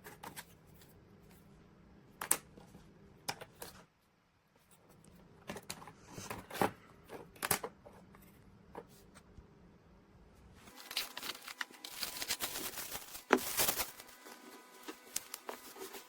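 Handling noise from small hard objects: scattered sharp clicks and taps, then a denser run of crackling and rustling about eleven seconds in, lasting some three seconds.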